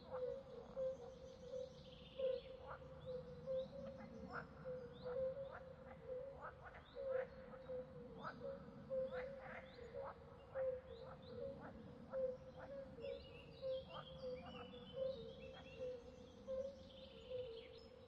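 Swamp ambience: frogs calling in a steady, low trilling chorus, with short sharp calls about once or twice a second. Small birds chirp high above it, with a flurry of bird notes near the end.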